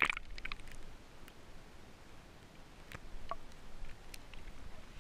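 Sparse small drips and splashes of water close to the microphone, with a few light ticks spread over several seconds and quiet between them.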